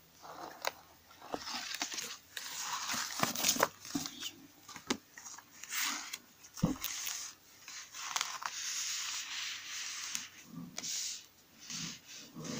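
Tarot cards being drawn from the deck and slid and laid down on a carpet for a four-card spread: a quiet, irregular run of card swishes and flicks with a few small taps.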